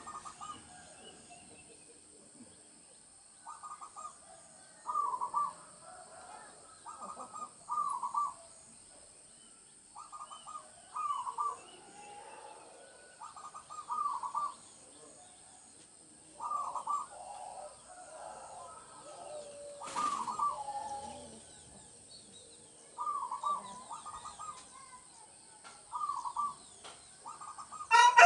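Caged zebra doves (perkutut) singing: short groups of soft rolling coos every one to three seconds, over a faint steady high whine. A single sharp click comes about two-thirds of the way in, and a much louder call breaks in at the very end.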